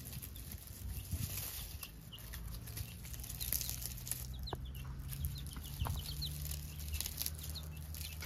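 Baby chicks peeping in short, high chirps now and then, with dry crackling and rustling of garlic stalks being handled, over a low steady hum.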